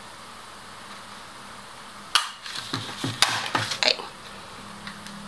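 Quiet room tone, then from about two seconds in a handful of sharp clicks and knocks, about five, as a 2.5-inch circle paper punch is worked on a sheet of paper.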